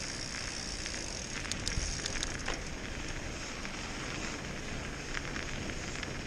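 Mountain bike rolling along a snowy trail: the steady noise of tyres on snow, with a few short sharp clicks about two seconds in.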